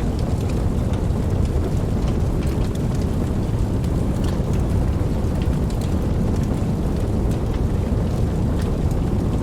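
Steady rain: an even hiss with a strong low rumble beneath it and scattered sharp ticks of individual drops.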